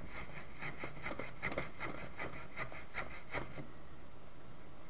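Steel wool scrubbing super glue off the threaded stud of an electric fan's blade hub: quick back-and-forth scratchy strokes, about five a second, stopping about three and a half seconds in.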